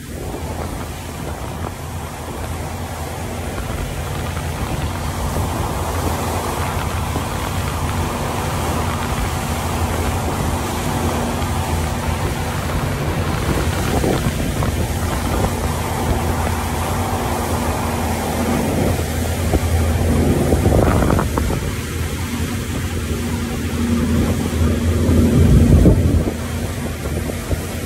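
Rigid inflatable speedboat running fast over open water: a steady low engine drone under rushing water and wind buffeting the microphone, slowly getting louder. A few short thuds come through, the strongest near the end.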